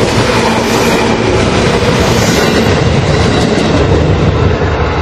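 Seibu Ikebukuro Line train passing over a level crossing at close range, a loud, steady rumble of wheels on rails.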